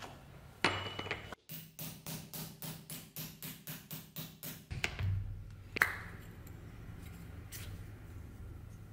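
Hammer striking a hollow leather punch, a quick even run of about four taps a second for some three seconds, cutting a round disc out of leather, with a single knock before the run and another after it.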